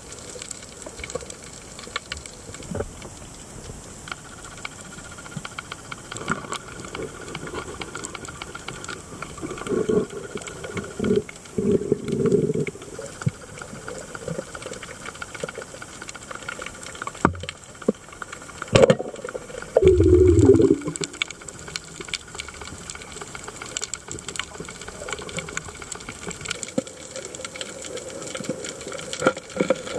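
Underwater sound picked up by a diving camera: a steady hiss full of fine crackling clicks, with short louder low bursts about ten and twenty seconds in and two sharp clicks near seventeen and nineteen seconds.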